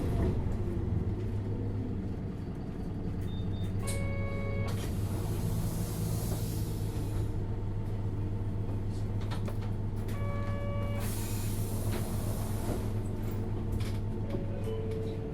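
Isuzu Erga LV290N1 city bus's four-cylinder diesel engine running steadily under way, heard from inside the cabin as a low hum. A brief high tone sounds twice, about 4 and 10 seconds in, and each is followed by a couple of seconds of hiss.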